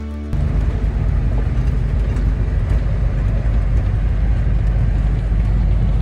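Heavy farm machinery running steadily with a loud, low, even rumble, the sound of a tractor or combine at work in the field.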